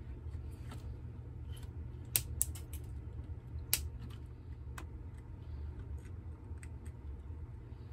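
Scattered small clicks and taps of tools handling a circuit board while a capacitor is fitted for soldering, over a steady low hum.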